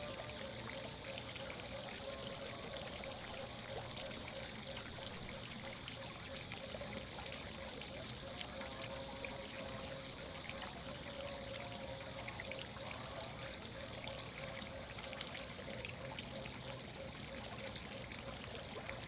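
Water running and pouring steadily, with a faint steady tone underneath.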